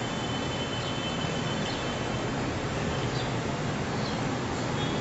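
Steady background noise, an even hiss and rumble, with a few faint light clicks.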